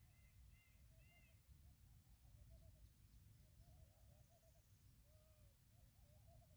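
Faint bird calls: repeated short chirping notes, with a brief high trill about four seconds in, over a low rumble.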